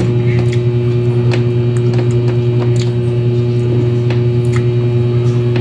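Loud, steady electrical mains hum throughout, with faint scattered clicks of food being handled and eaten.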